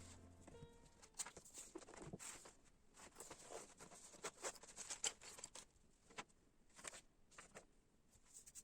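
Faint, irregular light clicks and rustles, as of small objects being handled.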